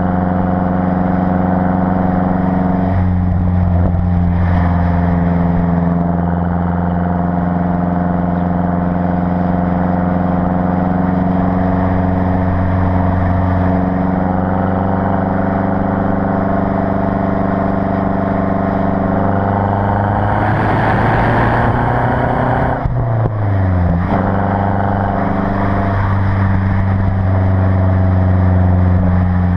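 Stock exhaust of a Mazda 3 MPS's turbocharged 2.3-litre four-cylinder, heard up close at the tailpipe: a steady drone while cruising. About twenty seconds in, the revs climb a little and a rushing hiss of exhaust flow, a windrush sound, rises over the drone. Then the pitch drops quickly as the revs fall and settles back to a steady drone.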